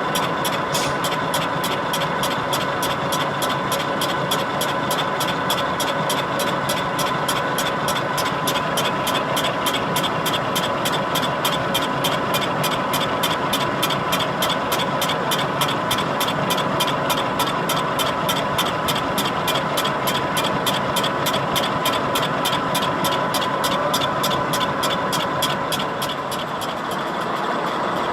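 A machine running steadily, with a constant whine and a fast regular ticking about three times a second.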